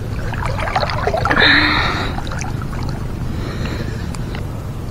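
Water splashing and sloshing as a hooked fish is played to the surface at close range, with a louder rush of splashing about a second and a half in. A steady low rumble runs underneath.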